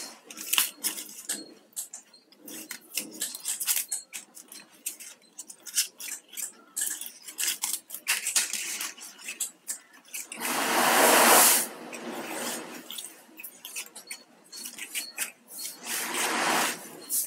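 Plastic basket-weaving wires being handled and worked into a knot: many small clicks and taps of the strands against each other. A longer, louder rustling rush comes about ten seconds in, and a shorter one near the end.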